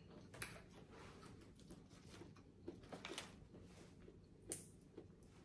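Near silence with faint eating sounds: soft chewing and a few light clicks of utensils, the loudest about four and a half seconds in.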